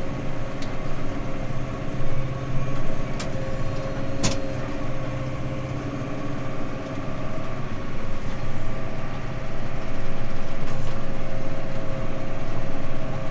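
Tractor engine running steadily, heard from inside the cab as an even drone, with a single sharp click about four seconds in.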